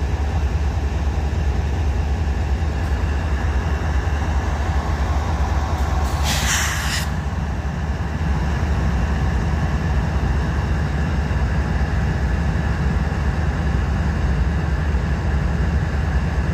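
Diesel freight locomotive idling with a steady low rumble, and a brief hiss about six seconds in.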